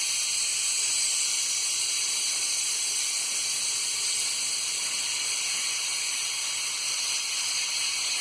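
Pressure cooker whistling: steam venting through the weight valve in one steady, high hiss, the sign that the cooker has come up to full pressure on high flame.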